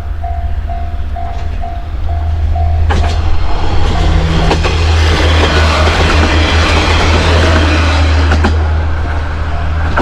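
Japanese level-crossing warning bell ringing in a quick clang-clang rhythm, about two and a half strikes a second, while a diesel train passes. The train's low engine drone runs under a rising rush of wheels on rail with a few clacks over the rail joints. The passing train covers the bell in the middle, and it is heard again near the end.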